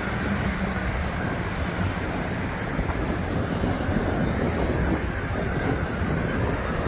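Steady wind rumbling on the microphone during a bicycle ride, a constant low noise with no distinct events.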